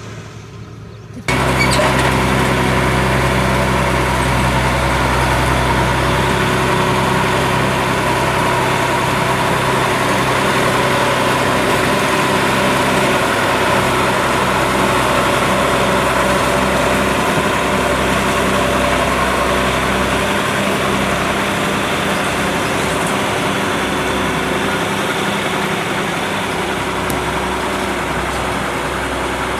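Combine harvester's diesel engine and machinery running steadily and loudly, coming in abruptly about a second in.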